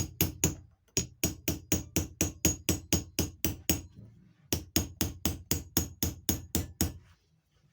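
Rapid, evenly paced hammer taps, about four or five a second, in three runs broken by short pauses, each tap with a slight ring.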